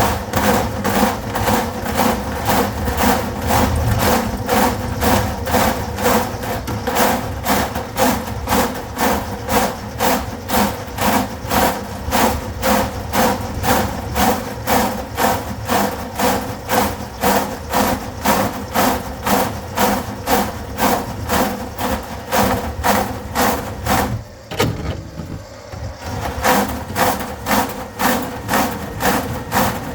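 Drain-cleaning machine running, its motor humming with an even knock about two and a half times a second as the cable turns in the grease-clogged drain line. It drops off briefly near the end, then starts again.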